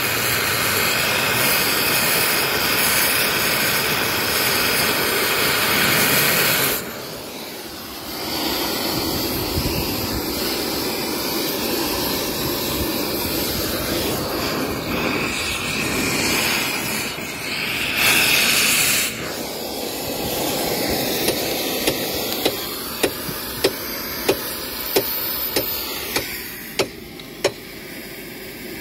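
Gas-cutting torch flame hissing steadily as it heats a screw hole in a concrete railway sleeper to free a stuck screw. The hiss dips briefly about seven seconds in and surges loud about eighteen seconds in. From about twenty seconds in it is quieter, with sharp ticks about once a second.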